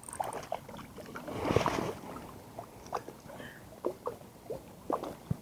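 A hooked trout splashing and thrashing at the water's surface, with many small plops of drops falling back; the biggest splash comes about a second and a half in.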